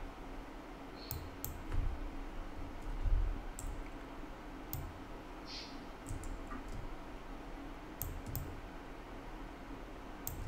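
Scattered, irregular clicks of a computer mouse and keyboard, about eight in all, with a couple of soft thumps, over a faint steady hum.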